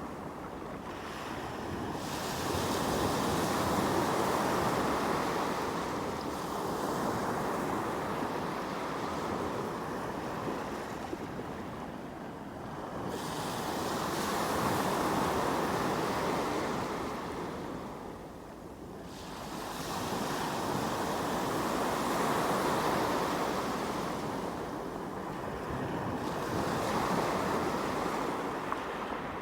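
Sea waves breaking and washing on the shore: the surf swells and fades in slow surges every several seconds.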